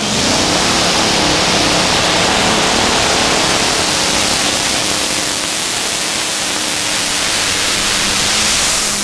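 Green Monster pulling tractor's twin supercharged Allison V12 aircraft engines at full throttle under load while pulling the sled. A loud, steady, dense engine roar that starts right at the launch.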